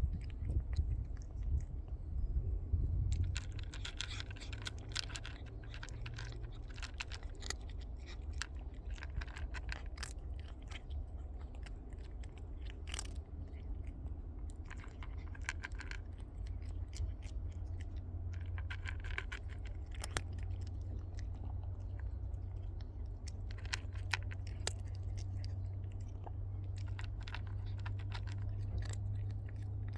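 A cat chewing its food: many quick, irregular clicks and crunches, over a steady low hum.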